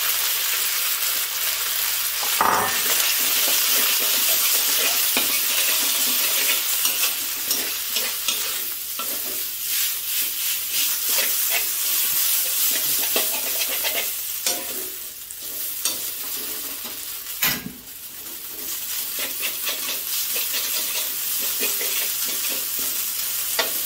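Rice vermicelli and marinated pork stir-frying in a hot wok: a steady sizzle with constant scraping as the noodles are stirred and tossed, and a couple of louder knocks against the pan.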